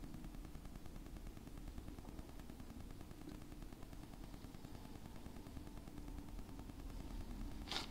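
Honda VFR1200X Crosstourer's V4 engine running at low revs, a steady rapid pulsing. A single sharp click comes near the end.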